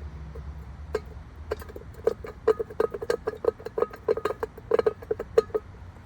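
Steel lug nuts clinking and ticking as they are started by hand onto a trailer wheel's studs. It is a quick, irregular run of short metallic clicks, each with a brief ring, thickest in the middle of the stretch.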